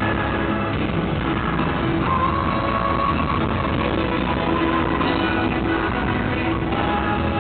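Live pop music from an arena concert: a male vocal group singing over an amplified backing band, heard through the PA from among the audience.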